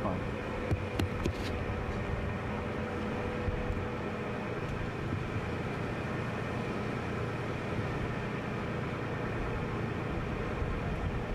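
Steady engine and road noise of a car driving slowly, with a few short clicks about a second in.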